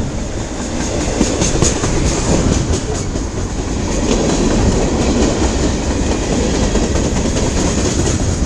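CN freight train's cars rolling past close by, a steady rumble of wheels on rail with a run of sharp clicks as the wheels cross rail joints, thickest in the first few seconds.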